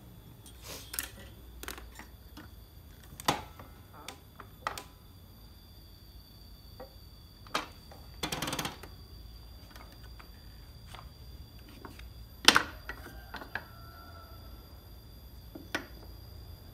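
Wooden strips and a ruler being handled on a miter saw's metal table: scattered light clicks and knocks, the sharpest about twelve and a half seconds in, with a short scrape about eight and a half seconds in. The saw's motor is not running.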